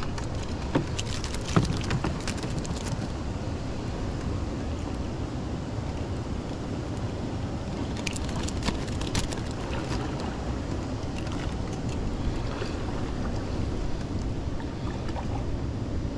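Steady low rumble of wind on the microphone out on open water, with scattered small clicks and knocks in the first few seconds and again around eight to ten seconds in.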